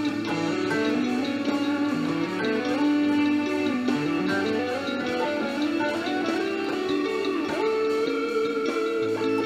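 Fender Mustang electric guitar fitted with Lindy Fralin pickups, played through Bias FX amp modelling: a single-note lead melody moving note to note, with a couple of slides and a long held note near the end.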